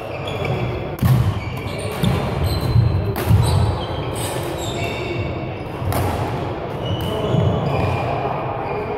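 Badminton doubles rally on an indoor court: sharp racket hits on the shuttlecock about a second apart, court shoes squeaking in short high chirps, and feet thudding on the floor, all echoing in a large hall.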